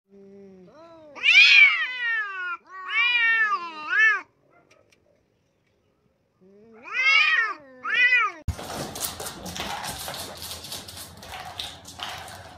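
Cats yowling at each other in a standoff: long, wavering, rising-and-falling yowls in two bouts with a silent pause between. Then a stretch of noise with scattered clicks.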